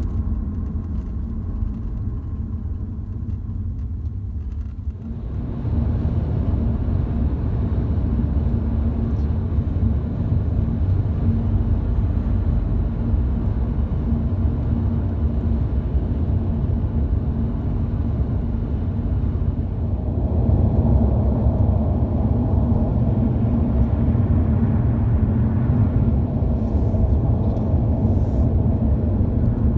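Road and engine noise of a moving car heard from inside the cabin: a steady low rumble that steps up in loudness about five seconds in and again about twenty seconds in.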